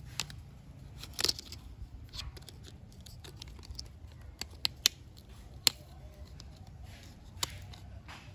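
Scattered small sharp clicks and taps of hard plastic toy parts being handled and pressed together, as a chrome bumper guard is fitted onto a toy car's black plastic chassis.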